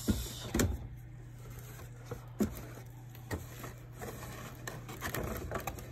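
Cardboard toy-truck boxes being handled and shifted inside a cardboard carton: a few light knocks and scrapes, growing into busier rustling and clicking near the end, over a steady low hum.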